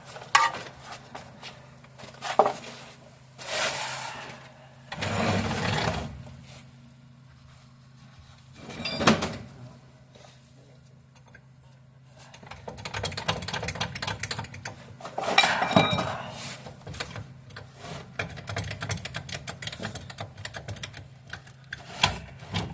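Metal hand tools and sockets clinking and clattering, with bouts of quick clicking, under a steady low hum.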